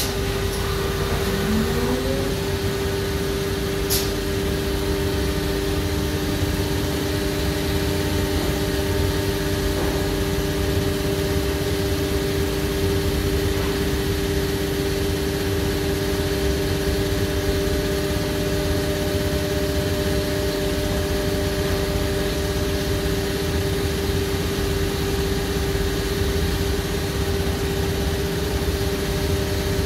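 Busellato Jet Plus 5 WF five-axis wood CNC machining centre running: a steady machine drone with two held tones over a low rumble. A brief rising whine comes about a second in and a single click about four seconds in.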